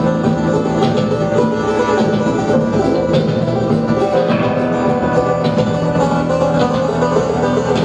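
Live band playing an instrumental passage: banjo and electric guitar over electric bass, steady and continuous.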